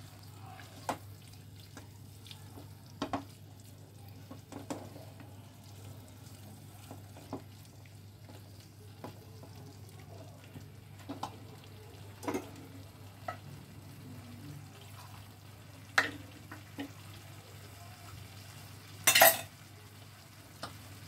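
A spatula stirs and scrapes paneer, capsicum and onion in a frying masala gravy in a nonstick pan, with a soft sizzle and occasional knocks against the pan; the loudest knock comes near the end. The masala is being sautéed on high heat before water goes in. A steady low hum runs underneath.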